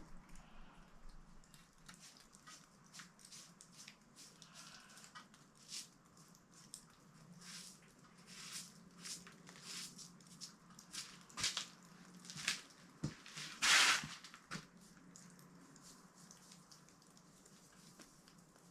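Knife work and handling while gutting a goat carcass: scattered soft scrapes, cuts and clicks, with one louder noisy scrape about fourteen seconds in.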